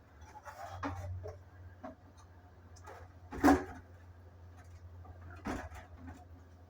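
Household handling clatter: scattered knocks and clinks, the loudest a sharp knock about three and a half seconds in, over a low steady hum.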